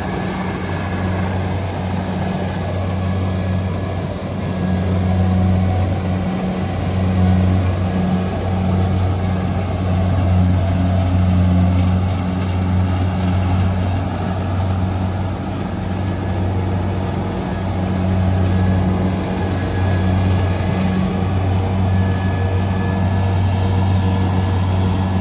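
Diesel engine of a Kubota combine harvester running steadily at a constant speed with a deep hum, briefly dipping about six seconds in.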